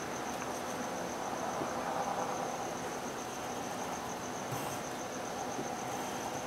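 Crickets trilling steadily in the background, a high continuous pulsing chirr, over a low steady hum and hiss. A brief pencil scratch on paper comes about four and a half seconds in.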